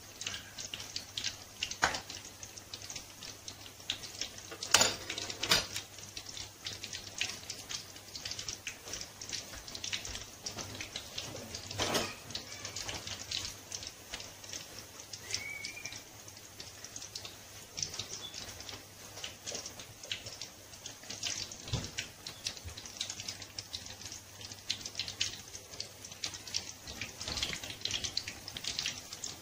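Potato-stuffed bread rolls deep-frying in hot oil in a kadhai: a steady, fine crackling sizzle, with a few louder clicks about five and twelve seconds in.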